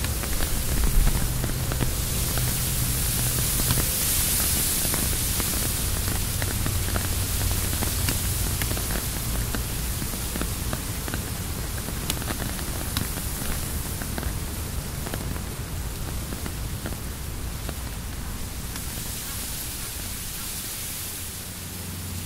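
Rain on a tent's fabric, with scattered single drops ticking on it and gusts of wind rising and falling; the whole slowly grows quieter.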